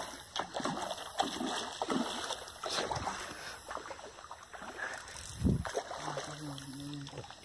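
A hooked carp splashing at the water's surface as it is played in, in irregular bursts, with one dull thump a little over five seconds in.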